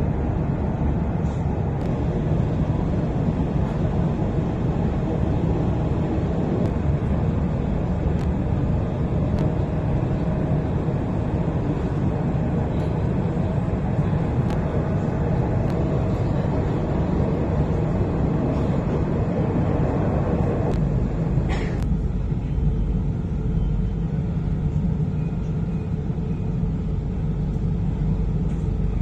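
Steady running rumble of a passenger train carriage heard from inside the cabin as it travels along the track. About two-thirds of the way through, the higher rushing noise falls away, leaving a deeper low rumble, and there is a single sharp click.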